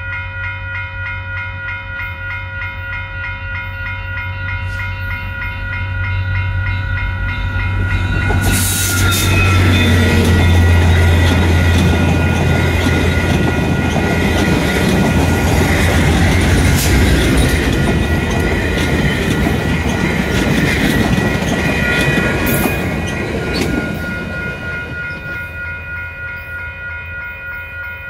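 Level-crossing bell ringing in a steady pulse as a VIA Rail passenger train passes, hauled by F40PH-2D and P42DC diesel locomotives. The engines rumble and the wheels clatter loudly for about fifteen seconds. The train noise then fades as the train draws away, leaving the bell.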